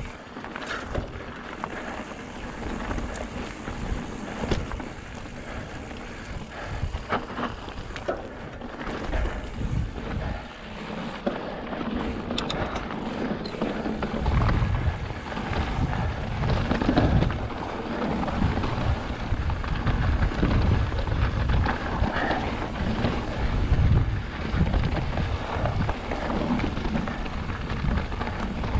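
Fezzari La Sal Peak mountain bike riding over dirt and loose rock singletrack: tyres rolling over gravel and stones, with steady clicks and rattles from the bike. Wind buffets the microphone throughout, heavier from about halfway.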